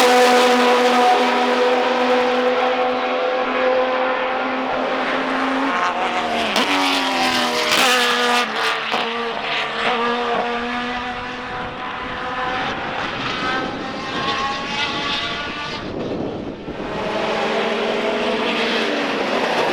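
Procar 4000 race cars' inline six-cylinder engines running at racing speed. One car holds a steady note at first, then several cars are heard together with their pitches rising and falling across each other, and another car's steady note comes in near the end.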